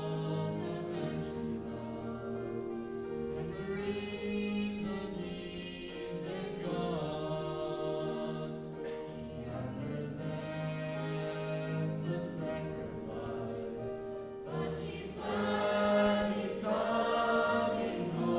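Mixed school choir singing with piano accompaniment, the voices swelling louder about fifteen seconds in.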